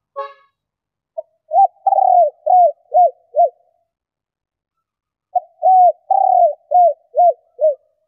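Female spotted dove cooing: two phrases of about six short rising-and-falling coos, each with one longer coo near its start. The first phrase begins about a second in, the second about five seconds in.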